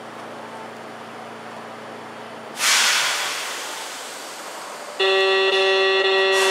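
Low steady hum from a stopped tram, then a sharp hiss of released compressed air about two and a half seconds in that fades over a second or so. At about five seconds a tram horn sounds one steady blast of about a second and a half.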